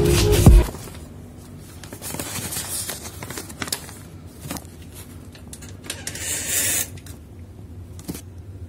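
Hip-hop music cuts off abruptly under a second in. It is followed by faint handling noise from a phone being moved: irregular rustling, scraping and small clicks, with a short hissing rustle about six seconds in.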